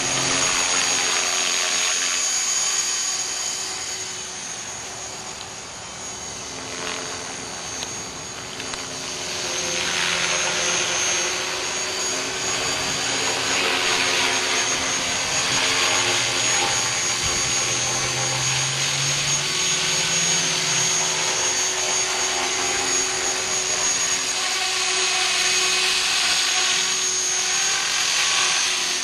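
Align T-REX 450SE v2 electric RC helicopter in flight: a steady high motor and gear whine with rotor noise. It dips in loudness for a few seconds near the start, then comes back up.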